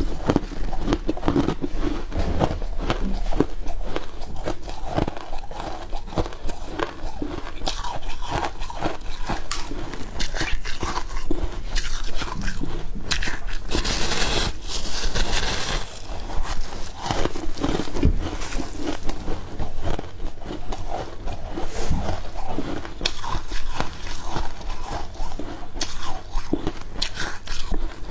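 Close-miked biting and chewing of freezer frost: crisp crunches and crackles one after another, with a brighter, louder run of crunching about halfway through.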